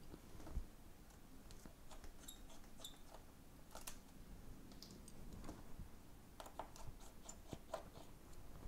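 Faint, scattered clicks and taps of a small screwdriver and fingers working on an opened iPhone 8.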